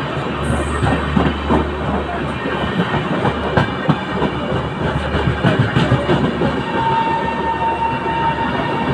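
Train passing on the track, its wheels clattering over rail joints with a dense run of irregular clicks and knocks. A low hum fades out about halfway, and a thin steady whine comes in about two-thirds of the way through.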